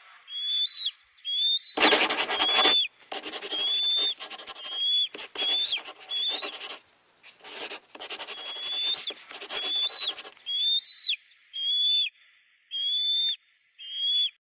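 Animal calls: short high whistled squeaks repeating about once a second, each hooking upward at the end, with harsh raspy screeches between them through the middle.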